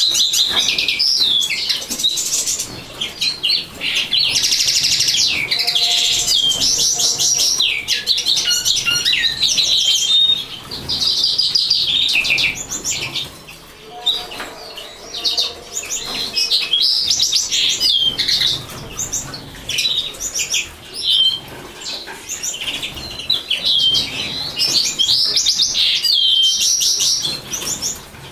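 Common linnet singing: long, fast runs of twittering and trilling notes mixed with buzzy rattles. The song comes in two long stretches, broken by a short pause about halfway.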